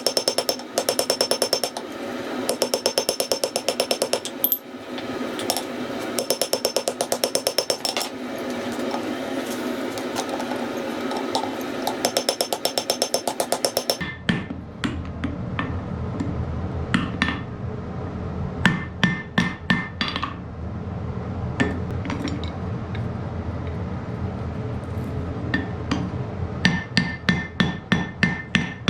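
Blacksmith's hand hammer striking hot iron on an anvil, with a ringing note after each blow. The first half is rapid runs of light blows. After a cut about halfway come scattered heavier single blows, then a steady quick series near the end.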